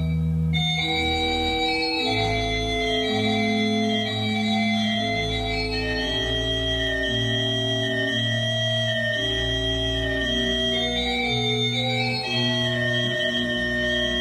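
Slow organ music: long sustained chords whose held notes change every second or two, at an even level.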